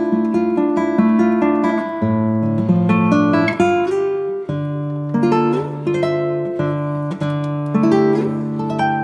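Background instrumental music: plucked notes picking out a melody over long, held low bass notes.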